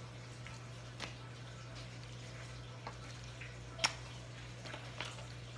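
Chef's knife slicing raw chicken thighs on a plastic cutting board: soft wet squishes of the meat and a few light taps of the blade on the board, with one sharper click a little past the middle. A steady low hum lies underneath.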